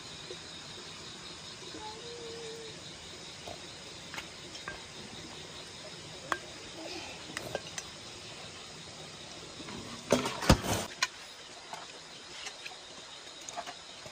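Steady chorus of insects chirping, with scattered light clinks of a rice bowl and chopsticks against stainless steel bowls and a louder clatter of dishes about ten seconds in.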